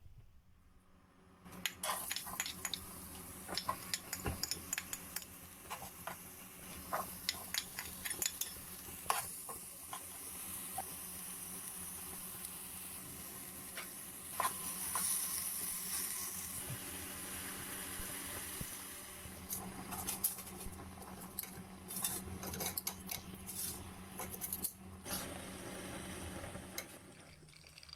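Kitchen utensils clinking and scraping against pans and bowls while instant noodles are cooked and stirred, with many sharp clicks scattered through, over a steady hiss that is strongest about halfway through.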